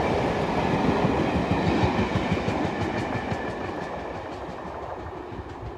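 Railway passenger coaches rolling past, their wheels clicking over the rail joints, the rumble fading away as the last coach goes by and the train draws off.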